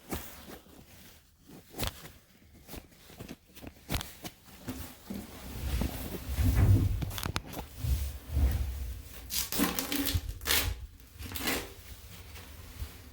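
Irregular handling noises in a small room: scattered clicks and knocks, heavier low thumps about six to nine seconds in, and a couple of rustling scrapes a little after ten seconds in.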